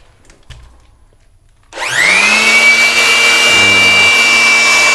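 Mailtank SH-15 electric hand blower switched on in blow mode about a second and a half in: its motor whine rises quickly to a steady high pitch over a loud rush of air.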